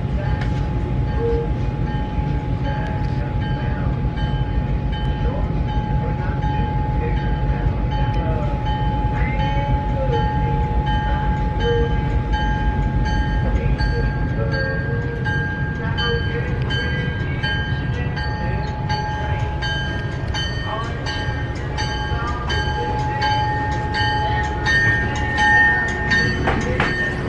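Locomotive running close by as it is moved around the train at a runaround. A steady low rumble fades about halfway through under a held steady whine, and regular clicking comes in over the second half.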